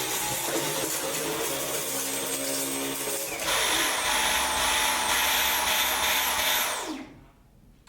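Dyson V11 cordless vacuum running, then louder from about three and a half seconds in, its motor pitch rising and dropping back about twice a second: the pulsing the machine makes when a blockage stops airflow through it. It switches off near the end, the pitch falling away.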